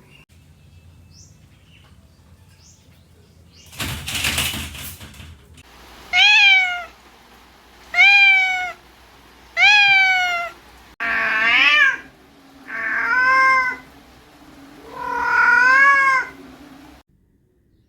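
A domestic cat meowing six times in a row, about a second and a half apart; the first three are higher and fall in pitch, the later ones are lower. A brief rustling noise comes just before the meows, about four seconds in.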